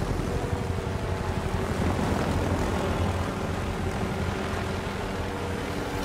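Helicopter approaching overhead: a steady drone of rotor and engine that grows louder in the first couple of seconds and then holds. It is a capture helicopter coming in to dart a wolf for radio-collaring.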